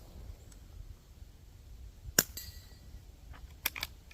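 A single suppressed shot from a CZ 455 .22 rifle with a Thompson Machine integral suppressor, firing subsonic CCI Standard ammunition: a short, sharp crack about two seconds in with a brief metallic ring after it. A few quieter metallic clicks follow near the end.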